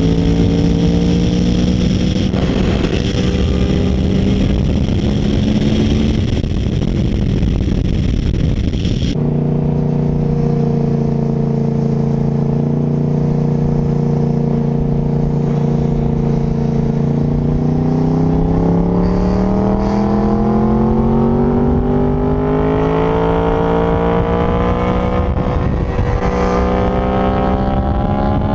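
A motorcycle engine running at speed, with wind rush on the microphone. The note drops suddenly about a third of the way in. From a little past halfway it climbs steadily as the bike accelerates.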